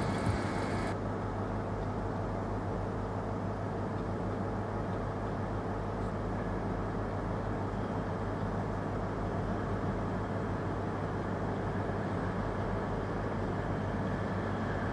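Grand Central Class 180 diesel multiple unit running on its underfloor diesel engines as it approaches slowly: a steady low engine drone.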